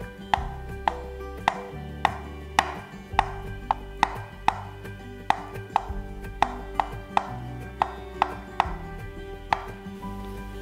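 Chef's knife chopping boiled egg whites on a wooden cutting board: a run of sharp knocks, about two a second, that stops about a second before the end.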